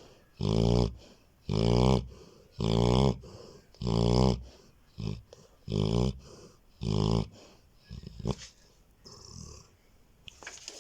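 A sleeping golden retriever snoring loudly and rhythmically: seven deep pitched snores, about one a second. The snoring stops about seven seconds in, leaving only a few faint short sounds.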